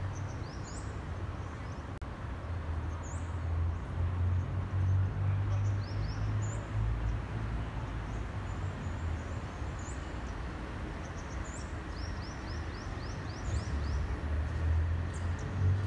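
Distant low rumble of an Airbus A340-500's four Rolls-Royce Trent 500 engines as the jet flies over, swelling and easing in level. Small birds chirp over it in short falling chirps, with a quick run of them about twelve seconds in.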